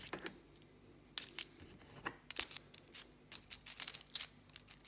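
UK 50p coins clicking and clinking as they are slid one at a time off a stack in the hand and set down on a cloth mat, in short runs of taps about once a second.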